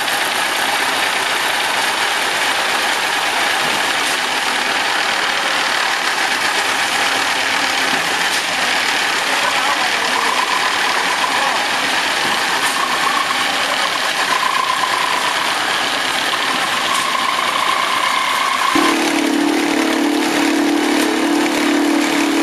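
Steady machinery noise from a concrete slab pour, with a faint wavering whine in the middle and a steady hum that comes in about nineteen seconds in and holds to the end.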